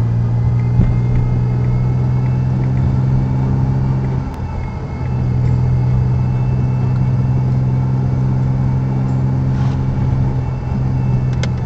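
Car engine and road noise heard from inside the cabin: a steady low drone that drops away briefly about four seconds in, then picks up again.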